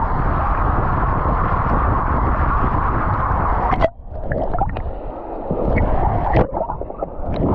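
Rushing water of a waterfall, heard as a steady noise that drops out suddenly about four seconds in, then returns uneven and broken up, with a few sharp knocks close to the microphone.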